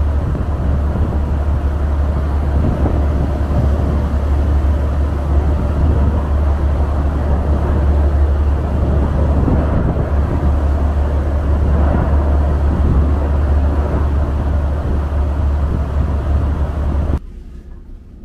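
Steady low drone of a large car ferry's engines, with a rushing of wind and water over it on the open deck. It drops sharply to a much quieter hum about seventeen seconds in.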